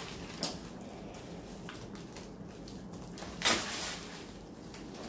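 Gift packaging being handled: plastic bags and wrapping rustling, with a few light clicks and one louder rustle lasting about half a second, around three and a half seconds in.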